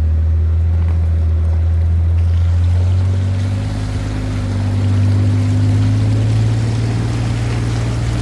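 Vehicle engine running at low speed through floodwater, with a rushing, splashing water sound that grows from about two seconds in as it pushes a wake. The engine note rises slightly in the middle.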